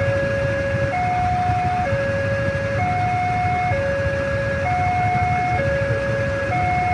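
Level-crossing warning alarm sounding a two-tone electronic chime, switching between a lower and a slightly higher tone a little faster than once a second, which signals that a train is approaching and the barriers are down.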